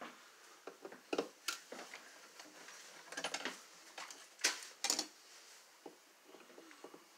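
Screwdriver working at a wall outlet: scattered small metallic clicks and scrapes as the cover plate and receptacle screws are undone, with a cluster of clicks around three to five seconds in.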